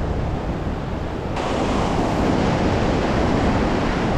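North Sea surf breaking and washing up a sandy beach, with wind buffeting the microphone. The sound becomes fuller and brighter about a second and a half in.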